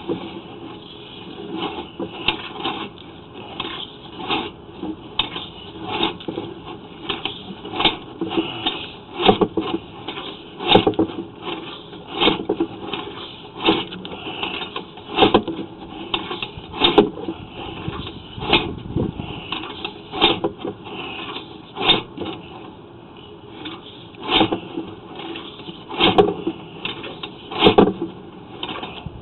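Sewer inspection camera and its push rod being shoved along a debris-laden, partly flooded sewer pipe. It makes a run of short, uneven knocks and scrapes, about one or two a second, as the camera head struggles to move further down the line.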